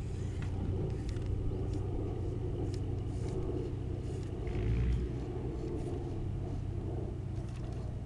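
Electric motors and plastic gears of a remote-controlled Lego Technic vehicle running steadily as it drives up onto a low trailer bed, a low hum that swells briefly about five seconds in.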